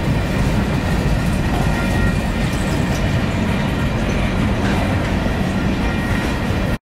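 Canadian Pacific freight train of covered hopper cars rolling past at close range: a steady rumble of steel wheels on rail with faint thin high squeals over it. The sound cuts off abruptly near the end.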